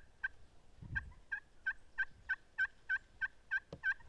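A series of turkey yelps: a quick pair, then about ten evenly spaced yelps at roughly three a second, with a small click near the end.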